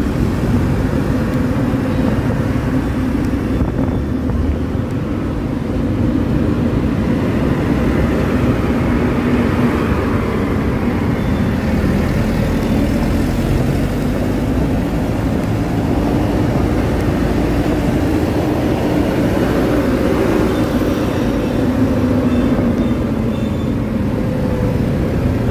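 Riding along on a motor scooter in dense motorbike traffic: steady engine hum and road rumble from the scooter and the motorbikes around it.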